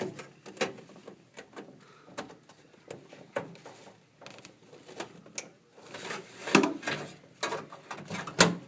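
Irregular clicks, taps and knocks of small plastic and metal parts being handled inside a range hood as the LED bulb and its wire connector are fitted back in place. The loudest knocks come about six and a half and eight and a half seconds in.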